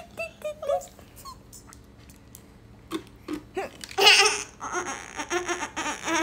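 A little girl's high-pitched squealing giggle, loud and wavering, starting about four seconds in and lasting about two seconds. Before it, only a few light clicks and faint short chirps.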